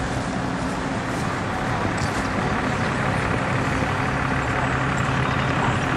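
A vehicle engine running steadily with a low hum over steady outdoor background noise; the hum grows a little stronger about halfway through.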